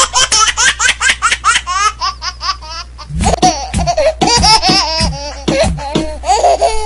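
A child laughing shrilly in quick, high, rising pulses, joined about three seconds in by a man's deeper, louder belly laugh, over a steady low hum.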